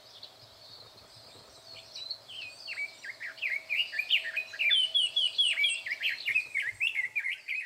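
Red-billed leiothrix singing loudly: after a short lull, a fast, continuous warble of rising and falling notes begins about two seconds in and runs on.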